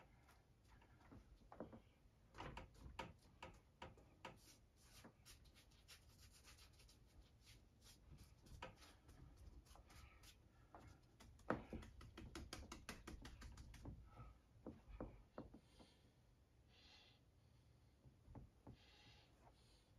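Faint clicks, taps and rubbing from rubber-gloved hands handling painting materials and working acrylic paint. The handling comes thickest through the middle and thins out after about 14 seconds.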